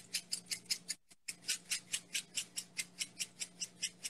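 Sprinkles rattling in a container shaken rapidly over cupcakes, about six or seven shakes a second, with a short break about a second in.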